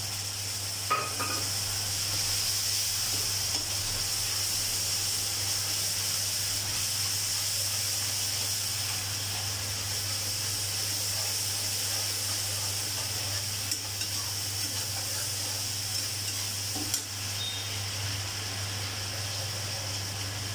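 Fish liver frying in hot oil in an aluminium kadai, sizzling steadily over a low hum. A metal spatula stirs and clinks against the pan a few times: about a second in, and twice in the second half.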